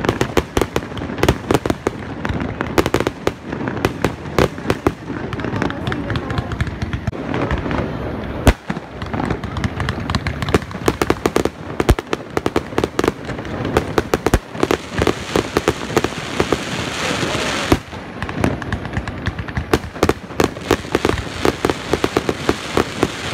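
Fireworks display: a rapid, continuous barrage of bangs and crackles. A denser stretch of hissing crackle builds about two-thirds of the way through and stops abruptly.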